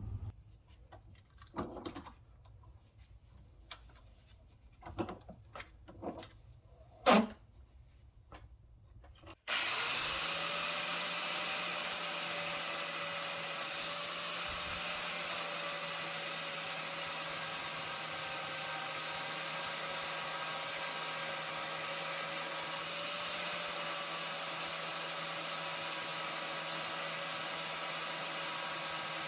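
A few scattered clicks and knocks, one louder knock about seven seconds in. About nine and a half seconds in, an electric angle grinder starts abruptly and runs with a steady whine, grinding the rusty steel hammer head.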